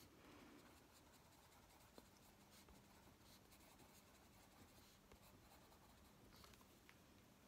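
Faint scratching of a Prismacolor coloured pencil stroking back and forth across a colouring book page.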